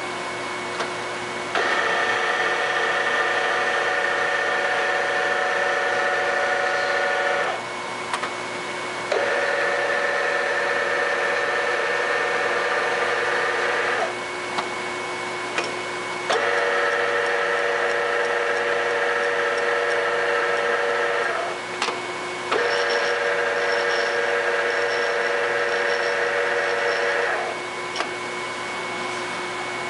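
2007 Summit 20X60B engine lathe running with a steady hum. Four times, about five seconds each, a louder gear whine comes in as the power feed is engaged from the apron lever, with clicks as the lever is thrown in and out.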